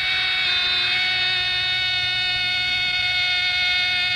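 Brazilian football commentator's drawn-out goal cry, 'gooool', held on one high, steady note, dipping slightly in pitch near the end.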